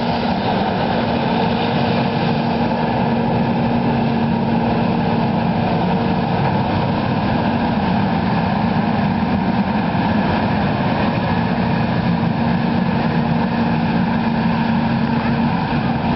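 Versatile 550 tractor's diesel engine running steadily, a constant heavy drone.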